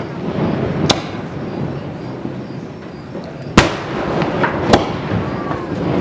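Fireworks display: aerial shells bursting with sharp bangs about a second in, a louder one past halfway, and another a second later, with smaller pops and a steady haze of noise between them.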